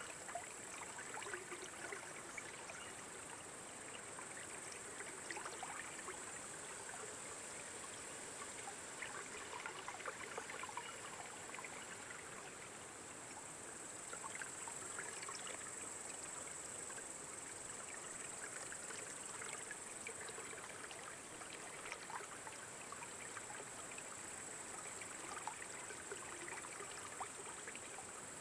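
Faint, steady trickling water, with many small irregular splashes and bubbling spatters.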